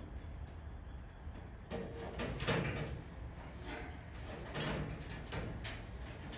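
Sheet-metal parcel shelf extension panel scraping, rubbing and knocking against the car body as it is shifted into position for a test fit. It starts about a second and a half in.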